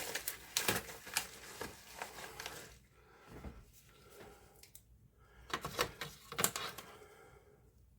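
Scattered light clicks and taps of plastic and metal parts being handled inside a disassembled computer monitor, several in the first few seconds and a short cluster again near the end.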